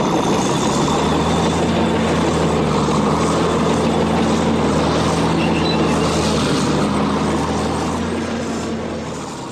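A steady engine rumble with a low hum, fading away near the end.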